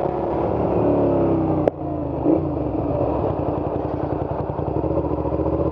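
Suzuki SV650's V-twin engine through a short aftermarket Hindle exhaust, falling in pitch as the bike slows. After a sudden cut with a click about a second and a half in, it runs steadily at low revs with an even, low putter.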